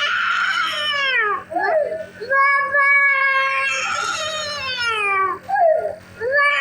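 A young child crying in long wails, one after another, each falling in pitch at its end, over the steady low buzz of the nebuliser's compressor.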